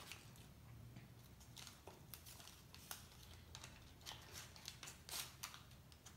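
Faint crinkling and rustling of a paper food wrapper being handled: a scatter of soft crackles, thickest in the second half.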